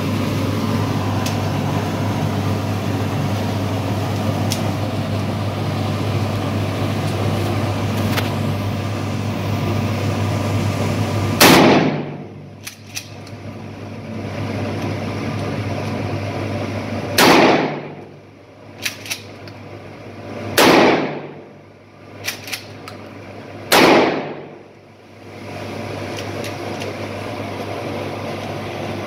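Pump-action shotgun firing four shots of Shooter shells, hot loads called very loud: the first about a third of the way in, the rest about three seconds apart, each echoing off the brick walls of an indoor range. Between shots come shorter sharp clacks as the pump is worked, and a steady low hum runs before the first shot.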